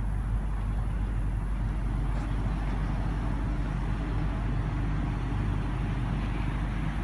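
Steady low rumble of outdoor background noise with a faint high-pitched tone, unchanging throughout.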